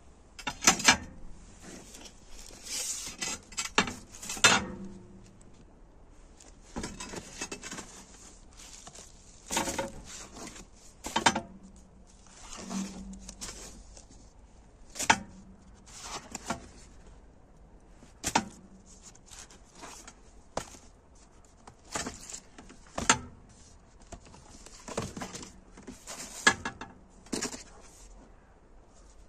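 Cardboard sleeves of vinyl LP records being flipped through and shuffled by hand: irregular slaps, scrapes and rustles every second or two.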